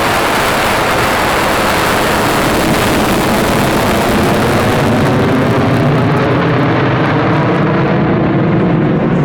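F-22 Raptor's twin Pratt & Whitney F119 turbofans in a loud jet roar during takeoff and climb-out. The high hiss fades over the second half as the jet moves away, leaving the deeper rumble.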